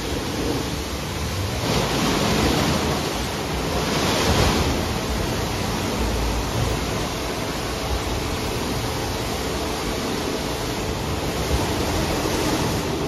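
Istobal M'Start rollover car wash during its brush wash: rotating brushes swishing against the car body with water spraying, a steady rushing noise that swells briefly about two seconds in and again about four seconds in.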